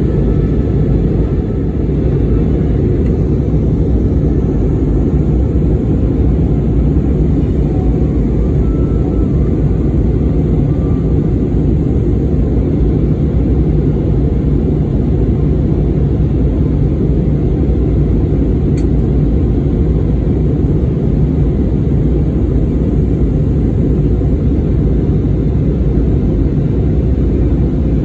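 Cabin noise inside an Airbus A320neo in flight: a steady, even low rumble of engines and airflow heard from a window seat.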